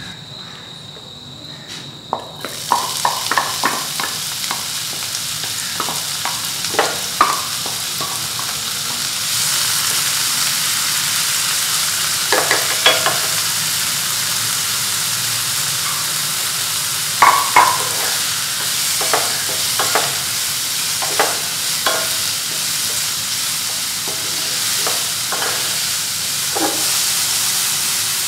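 Chopped red onions sizzling in hot oil and chicken drippings in a non-stick frying pan, the start of caramelising them. The sizzle starts suddenly about two seconds in as the onions hit the pan, and grows louder a few seconds later. A wooden spatula scrapes and knocks against the pan now and then as the onions are stirred.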